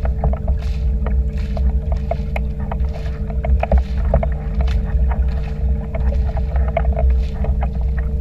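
Small towing boat under way, its motor running with a steady low rumble and hum. Water splashes and slaps irregularly against the hull.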